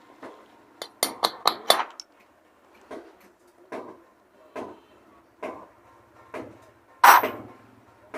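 Hammer tapping the worn rocker pin out of a Honda CG 125 cylinder head: a quick cluster of sharp metallic strikes about a second in, then steady light taps a little under once a second, and a louder strike near the end.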